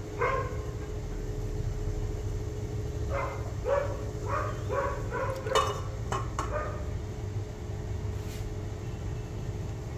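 A small dog barking in a quick run of short barks, from about three to seven seconds in, over a steady low hum. A couple of clicks sound in the middle of the run.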